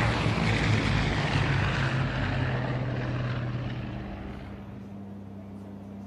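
Lockheed P-3 Orion's four turboprop engines as the patrol aircraft passes low, loud for about four seconds and then fading into a quieter, steady low drone.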